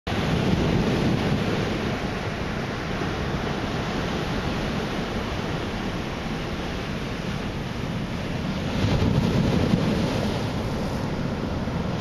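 Ocean surf from a typhoon swell: waves breaking close to shore and washing up the beach as a steady rush. It swells louder about a second in and again around nine seconds in as sets break.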